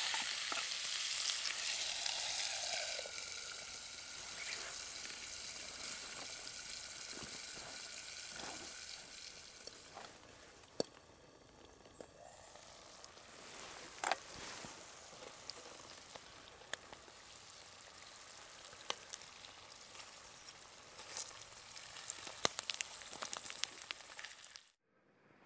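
Bacon, then eggs, sizzling in a small frying pan over a camp stove, with occasional sharp metal clinks. The sizzle is loudest for the first few seconds and then fades to a softer hiss.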